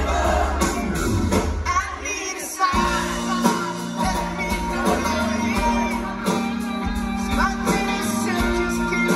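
Live rock band playing: drums, bass, electric guitars and keys with a male lead singer, heard from within the audience. The bass drops out briefly about two seconds in, then the full band comes back in.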